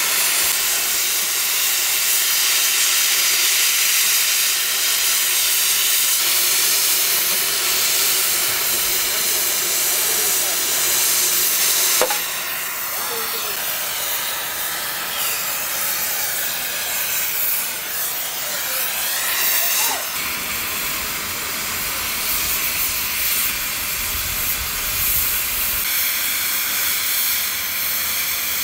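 Oxy-fuel cutting torch hissing steadily as it cuts through the steel of a scrapped steam locomotive, with a single sharp click about twelve seconds in.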